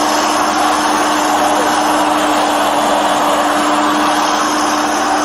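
Backhoe's diesel engine running steadily at close range, a loud constant drone with a steady low hum.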